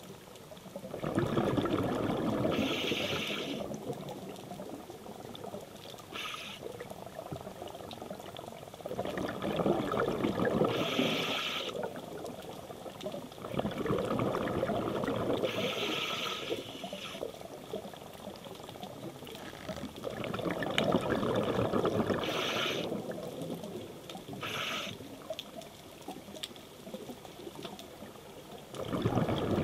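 A scuba diver breathing through a regulator underwater: bursts of exhaled bubbles gurgle and rush past the microphone every six to eight seconds, each with a higher hiss, over a low water hush in between.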